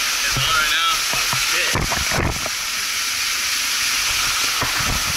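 Steady hiss of rushing creek water in a rocky pool, with a few low thumps about two seconds in.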